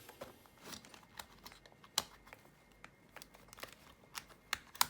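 Light clicks and rustling of hard plastic parts being handled as a bungee cord is hooked over a 3D-printed MOLLE walkie-talkie holder, with two sharper clicks about two seconds in and near the end.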